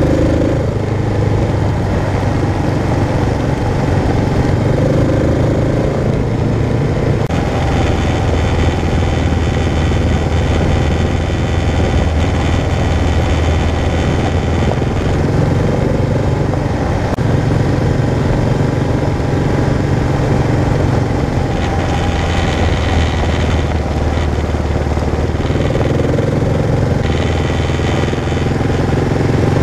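Kawasaki KLR650's single-cylinder four-stroke engine running under way on a dirt road, its note shifting a few times as the riding speed changes.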